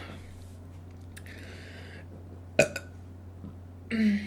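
A woman's short burp near the end, with a sharp click a little before it.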